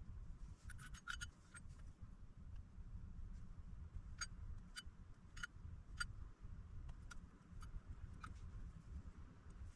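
Faint, scattered clicks and light taps of small hard objects being handled on a workbench, over a low steady hum.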